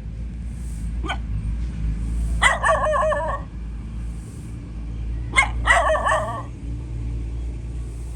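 A dog barking twice, a few seconds apart, each a sharp bark running into a drawn-out wavering yelp about a second long, over a steady low rumble.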